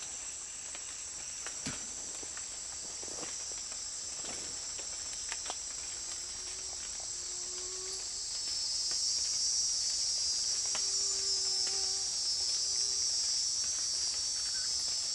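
Steady high-pitched drone of a forest insect chorus, growing louder about eight seconds in, with a few faint low held tones and light ticks over it.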